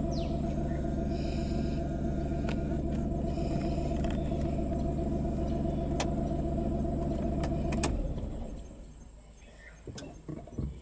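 Car engine idling steadily, then switched off about eight seconds in. A couple of sharp clicks come just before it stops, and a few faint knocks follow in the quiet.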